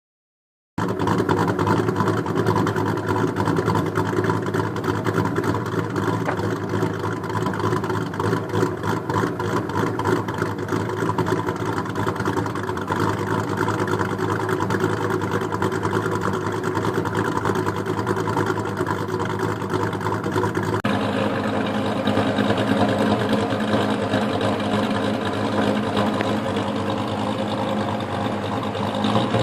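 Car's new aftermarket exhaust idling steadily. About 21 seconds in the sound changes abruptly and is duller from there on, as a second recording of the same exhaust takes over. The owner finds the exhaust sounds quite different once it has carboned up.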